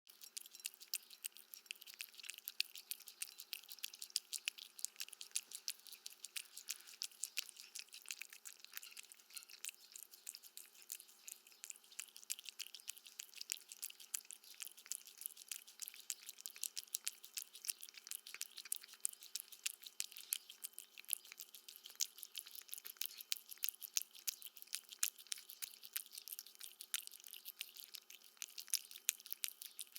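Cat eating, chewing its food with a rapid, steady run of small clicks.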